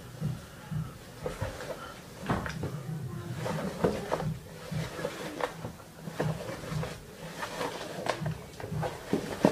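Irregular knocks, thumps and scuffs of a person crawling and sliding along a hardwood floor.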